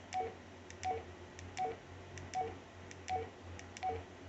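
Baofeng UV-5R handheld radio key beeps as the menu is scrolled down button by button: a short higher-then-lower two-note beep with a faint key click, repeating about every 0.7 s, six or so times, over a faint low hum.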